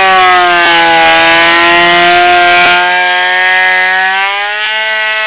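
Electric planer's motor running with a loud, steady whine. Its pitch sags a little in the first second and rises again after about four seconds, with a few faint knocks.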